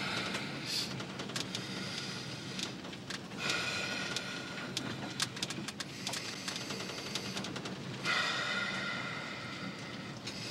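Truck engine running steadily, heard from inside the cab as a constant low hum, with scattered clicks and rattles. A high ringing tone swells in and fades three times over it.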